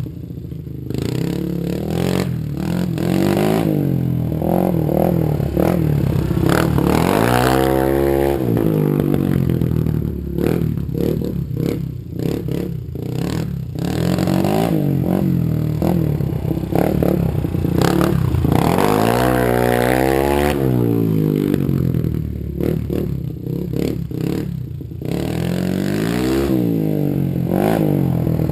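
Kawasaki KLR250's single-cylinder four-stroke engine through a Big Gun aftermarket exhaust, revving up and down as the bike is ridden through the gears. There are three sharp drops and climbs in pitch. By the rider's account, the carburettor jetting is still slightly off for the new exhaust.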